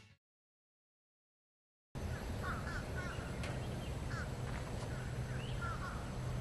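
Total silence for about two seconds, then outdoor ambience comes in: a steady hiss and low hum, with birds calling several times.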